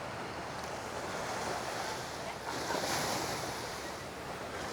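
Sea surf washing onto the beach, a wave surging up about halfway through, with wind on the microphone.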